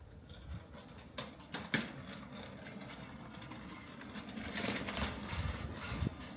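Footsteps clicking on pavement, with a vehicle's engine coming closer and getting louder toward the end.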